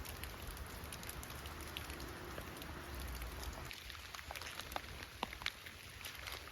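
Steady rain with individual drops pattering close by; the drops grow sparser and more distinct about halfway through.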